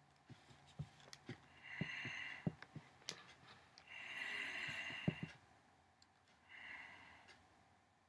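Faint breathing close to the microphone, three soft breaths about a second or so long, with scattered light taps and clicks from a hand holding the book.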